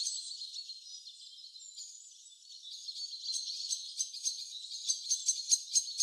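Birds chirping and twittering, all high-pitched, with quick runs of sharp chips. The calls thin out and quieten a couple of seconds in, then build again, denser and louder, near the end.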